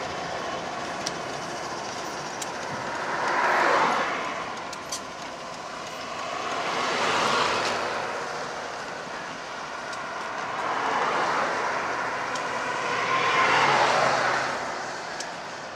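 Road traffic passing close by: four vehicles, among them a pickup truck and an SUV, drive past one after another. Each one swells to a tyre-and-engine rush and then fades away.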